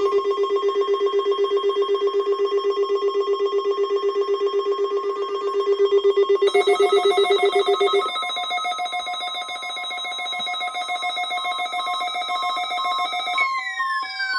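Weather radio receiver's electronic alarm sounding for a NOAA Weather Radio required weekly test: rapidly pulsing, ringing tones over a steady tone. The pulsing changes pitch about eight seconds in, and a falling sweep starts near the end.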